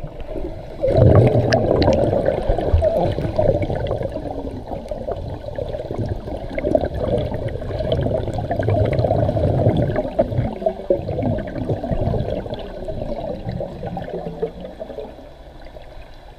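Muffled underwater pool sound through an action camera's waterproof housing: churning bubbles and water stirred by a child swimming close by. It is loudest about a second in and fades toward the end.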